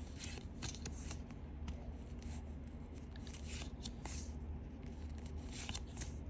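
Pokémon trading cards being flipped through by hand, one card slid off the stack after another, making a string of short, irregular swishes over a steady low hum.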